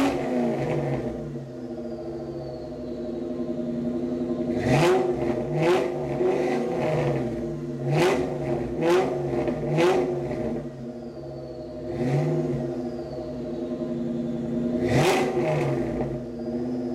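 2003 Mustang SVT Cobra's supercharged 4.6-litre DOHC V8, breathing through stock manifolds, an X-pipe and a Mac 2.5-inch catback with Flowpath mufflers, idling and blipped to quick revs. The revs come singly and in quick runs: one right at the start, two around five seconds in, three in a row around eight to ten seconds, and one near fifteen seconds, each dropping back to a lumpy idle.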